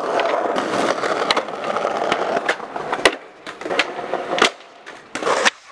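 Skateboard wheels rolling over rough concrete and asphalt, broken by sharp clacks and slaps of the board striking the ground; the loudest slap comes about three seconds in, another about a second and a half later, after which the rolling fades.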